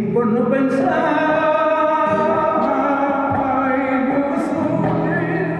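Male flamenco singer singing cante, drawing out long held notes with wavering ornaments and pitch glides.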